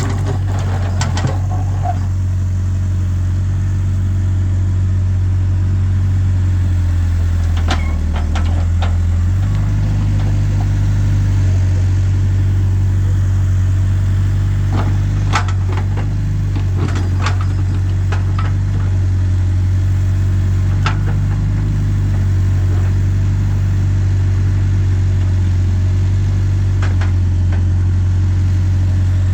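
Backhoe loader's diesel engine running steadily, its pitch stepping up a little about a third of the way in, with scattered sharp knocks.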